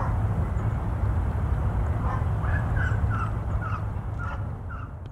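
Boeing 737-800's CFM56-7B turbofans rumbling low as the jet climbs away after takeoff, fading over the last second or so. Over it, a bird gives a series of about six short calls, roughly two a second, starting about two and a half seconds in.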